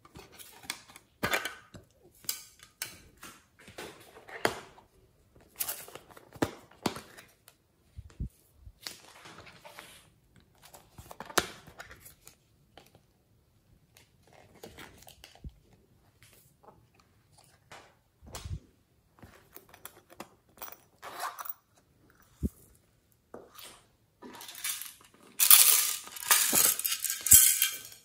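Plastic slime and clay cases being handled and opened: irregular clicks, taps and scrapes of plastic lids and tubs. Near the end, a louder stretch of dense rattling as glitter is shaken from a small plastic tub into a glass bowl.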